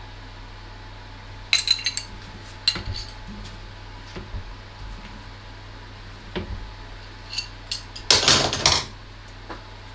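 Metal parts and tools being handled at a workbench, clinking and knocking. There are scattered clinks, a quick cluster about a second and a half in, and a longer rattling clatter about eight seconds in, which is the loudest. A steady low hum runs underneath.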